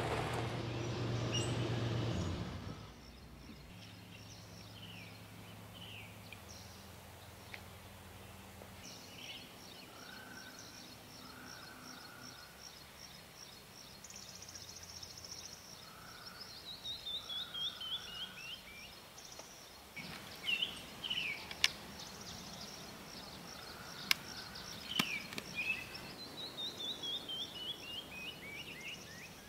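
Birds singing in woodland: scattered chirps, and twice a quick run of notes that drops in pitch. A pickup truck's engine runs loudly for the first two or three seconds, then gives way to a fainter low hum that fades out. A couple of sharp clicks come near the end.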